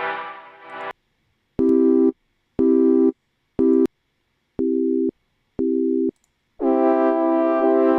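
Synthesized electronic tones from a software instrument in a DAW. A buzzy held chord cuts off about a second in. Five short, evenly spaced beeps follow, about one a second like a telephone busy signal, and then a long held tone starts near the end.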